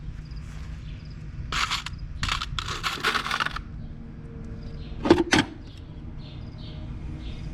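Farrier's tools on a horse's hoof: three scraping strokes, then two sharp metallic clinks about a third of a second apart.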